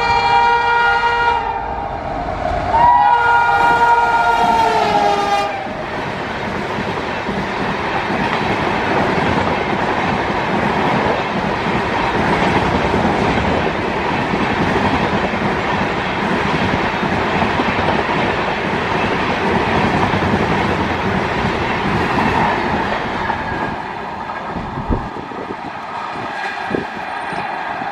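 A WAP-7 electric locomotive's horn blows two long blasts in the first five and a half seconds. The train then passes with a steady rush of wheel-on-rail noise that eases off near the end, with a few sharp clicks from the wheels.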